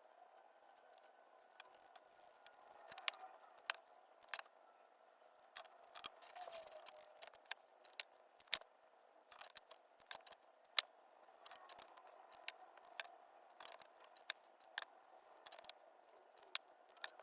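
Irregular small clicks and taps of art supplies being handled and used on paper, over a faint steady hum.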